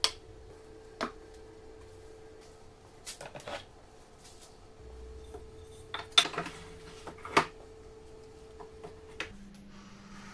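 Wooden plough plane with brass fittings and a wooden board being handled and set down on a workbench: a string of sharp knocks and metallic clinks, several in quick pairs and clusters, with a faint steady hum underneath.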